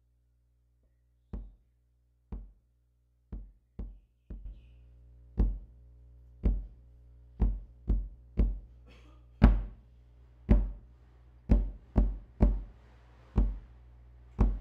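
Large hand-held drum struck with a wooden stick: a deep beat about once a second, with extra off-beat strokes, under a low sustained synth chord that comes in about four seconds in.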